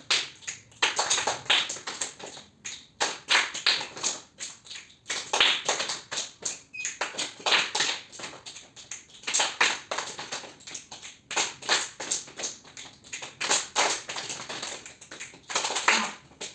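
Improvised rhythm tapped out on a hard surface: quick runs and clusters of sharp taps with short gaps between them, in an uneven, freely changing pattern.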